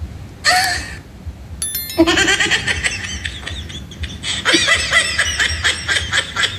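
Sound-effect clips played one after another: a short sneeze about half a second in, a brief electronic chirp, then a long stretch of laughter from about two seconds in.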